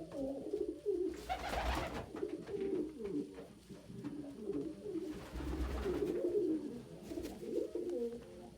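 Domestic pigeons cooing without a break, several low warbling coos overlapping. A short rustling noise comes twice, about a second and a half in and again around five and a half seconds.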